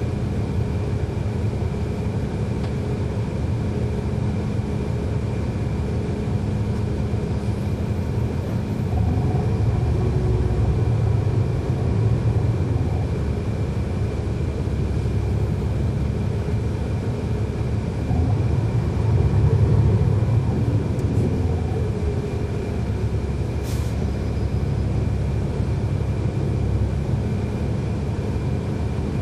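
Cummins ISL9 diesel engine and ZF Ecolife automatic transmission of a 2011 NABI 40-SFW transit bus running, heard from inside the cabin. The rumble swells twice, about nine and nineteen seconds in, and a single sharp click comes about three quarters of the way through.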